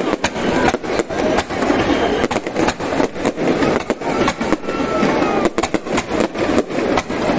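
Aerial firework shells bursting in quick succession, a dense barrage of sharp bangs and crackles with many reports each second.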